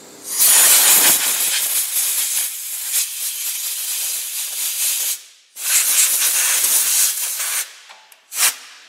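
A cleaning jet of compressed air or spray hissing against a rear brake caliper and its bracket, in two long blasts and a short one near the end, clearing away dirt and old grease.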